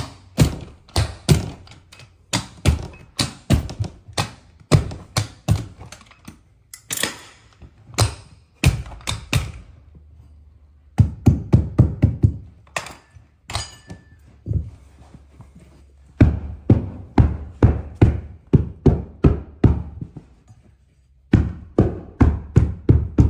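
Carpet-fitting tools knocking stair carpet into place: a steady series of sharp thuds, about one or two a second, with a quicker run of strikes about eleven seconds in.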